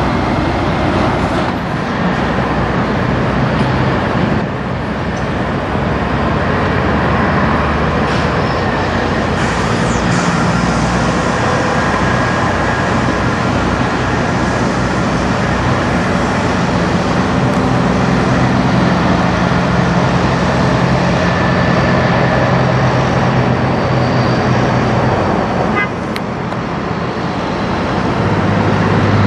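Diesel engines of semi-trucks pulling flatbed trailers, running steadily as the rigs drive past, with tyre and traffic noise.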